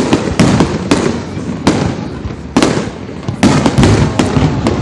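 Fireworks bursting in rapid succession, sharp bangs several times a second, irregularly spaced, with rumbling echo between them.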